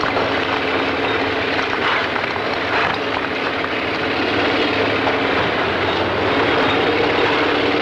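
Large rope-operated face shovel running with a steady low mechanical drone as it digs and loads quarried rock.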